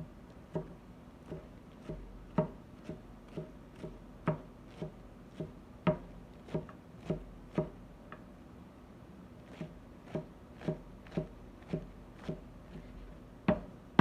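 Kitchen knife slicing vegetables on a cutting board: sharp, even knocks about two a second, with a short pause just past the middle.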